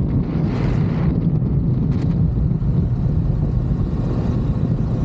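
Ducati DesertX's 937 cc V-twin running steadily at cruising speed on a gravel track, heavily mixed with wind buffeting the bike-mounted camera's microphone, with a brief swell of wind hiss about half a second in.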